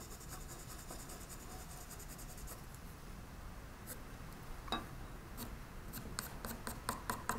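Faint pencil scratching as a line is drawn on a wooden board. Near the end come a run of light clicks as the metal combination square is shifted on the board.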